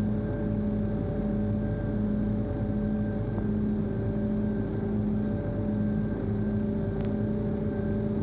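Steady machinery hum with several held tones over a constant rumble, unchanging throughout, with one faint tick about seven seconds in.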